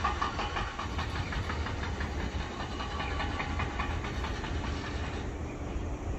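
Gusty wind rumbling on the microphone under an approaching rainstorm, with a fast, light ticking over it that fades out about five seconds in.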